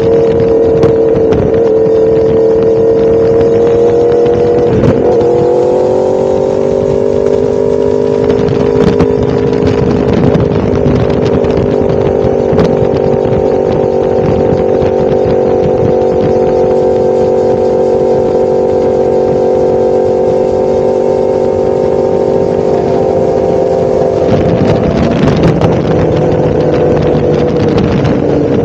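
1000cc motorcycle engine running under way at steady cruising revs. Its pitch drops slightly about five seconds in, holds level, then rises again near the end.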